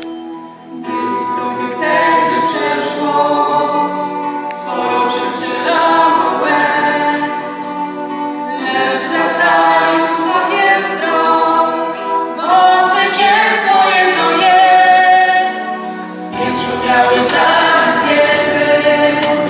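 A mixed choir of men's and women's voices singing, in phrases of a few seconds with short breaks between them.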